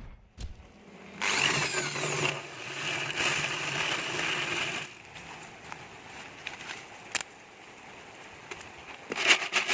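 Small electric motor of a homemade corn sheller built from a used can, running steadily for about four seconds with a constant hum. It then drops off, leaving a quieter stretch with a single click and a short burst of clatter near the end.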